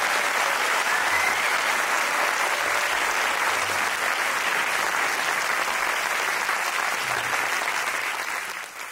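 Concert-hall audience applauding steadily, fading out near the end.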